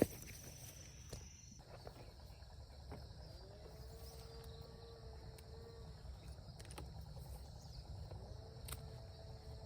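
Outdoor ambience of insects chirring steadily, over a low rumble. A faint two-note hum comes in twice and holds steady for a few seconds each time.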